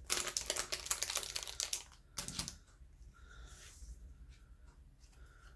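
Thin plastic trading-card sleeves crinkling as they are pulled from their packet and cards are slid into them: dense crinkling for about two seconds, a short burst shortly after, then faint handling.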